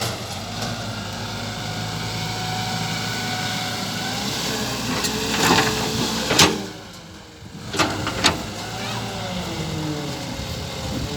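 Radio-controlled model excavator's motors whining steadily, the pitch rising and falling in the later part. There are a few sharp knocks about two-thirds of the way in, with a brief dip in level between them.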